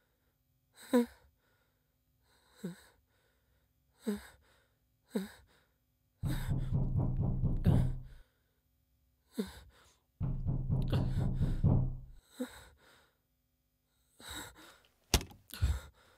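A man's panicky sighing and gasping breaths, short bursts each falling in pitch, coming every second or so, broken twice by a loud, deep rumbling sound of about two seconds. Near the end come a few sharp knocks on a door.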